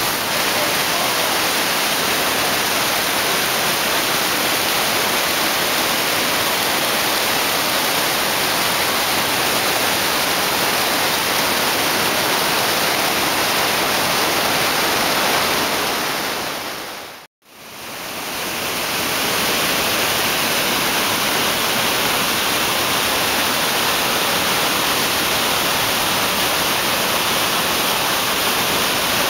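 Whitewater rapids of the Potomac River at Great Falls, rushing steadily through a rocky gorge. The sound cuts out briefly about seventeen seconds in, then returns with a brighter hiss.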